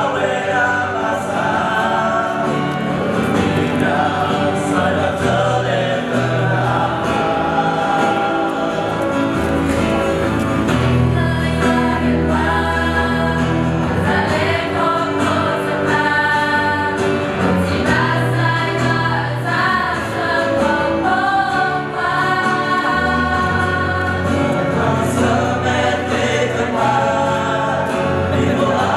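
A choir of young men and women singing a hymn together, holding long notes with short breaks between phrases.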